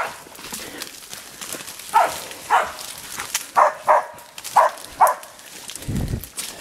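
Hunting dog barking at a wild boar it is holding at bay, about nine short barks, mostly in pairs. Brush crackles underfoot throughout, and there is a low thud about six seconds in.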